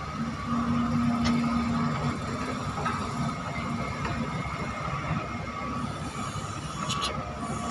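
Hydraulic excavators working, their diesel engines running under load with a steady hydraulic whine. A couple of sharp metallic clanks come through, one early and one near the end.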